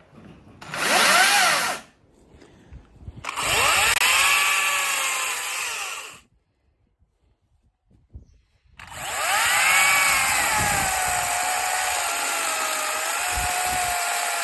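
Makita DUC254 18-volt brushless cordless chainsaw whining in three runs: a short trigger blip, a longer run, then after a pause a sustained run whose pitch sinks and holds lower as it cuts into wood. The chain is one the user thinks is badly blunted.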